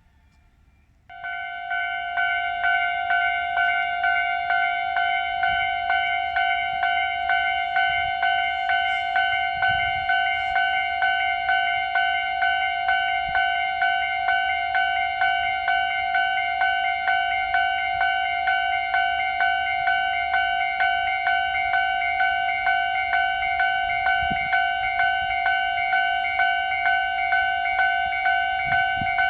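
Japanese railway level-crossing warning bell starts about a second in and rings steadily in an even, rapid rhythm: the crossing is closing for an approaching train.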